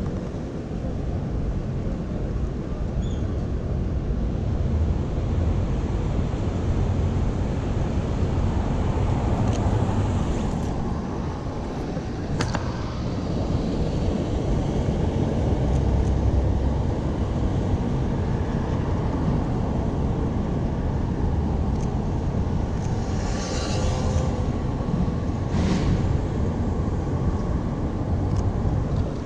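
City street traffic: a steady, low rumble of passing vehicles, with one sharp click partway through and two brief high hissing sounds near the end.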